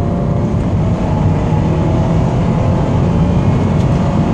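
2008 Subaru WRX Sportshift's turbocharged flat-four pulling under acceleration in gear: a steady low drone with a faint squeal that rises in pitch over the first couple of seconds. The squeal comes only when accelerating in gear, not when revving parked, and its cause is unknown to the owner.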